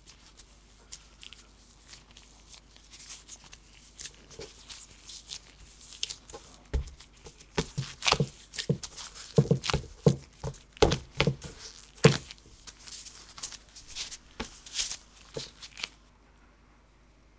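Gloved hands kneading soft butter cookie dough on a wooden cutting board: squishing, tearing and patting the dough in quick irregular strokes, loudest around the middle, then stopping shortly before the end.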